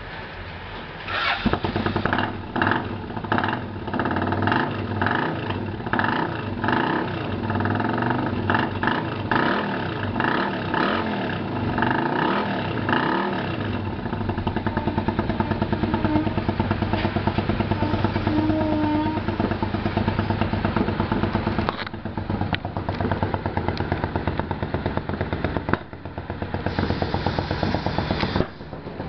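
1995 Suzuki Intruder 800's V-twin engine running. It rises sharply about a second in and is revved in repeated short blips for the first dozen or so seconds. Then it runs more steadily, with a few brief drops near the end.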